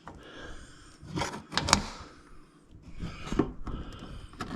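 Plastic pin removal tool prying at the plastic push pins behind a pickup's front bumper: handling and scraping with a few sharp clicks and knocks.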